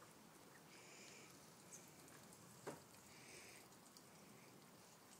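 Near silence: faint outdoor background, with one brief soft click a little past halfway.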